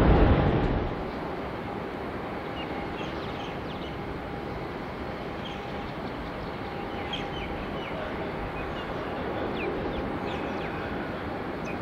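Small birds chirping now and then over a steady background hum of distant traffic and airport noise. A louder rush of noise cuts off about a second in.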